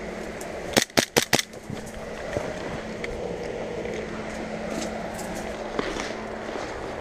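Four quick sharp airsoft gun shots about a second in, then quieter movement noise as the player walks on.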